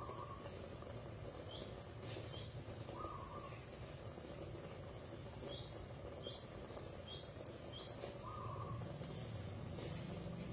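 Birds calling in the background: a short mid-pitched call every few seconds, with several brief high chirps in between, over a steady low hum.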